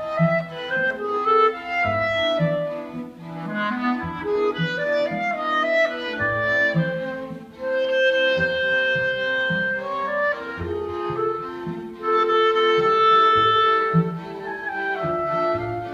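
Live chamber music: violins, clarinet and harp playing a classical piece together. The bowed strings and the clarinet hold long melodic notes over short low notes that recur at a steady pace.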